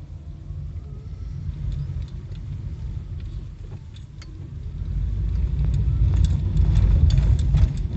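Electric train running past on the Kintetsu Osaka Line: a low rumble that grows louder about five seconds in, with a quick run of sharp clicks over it.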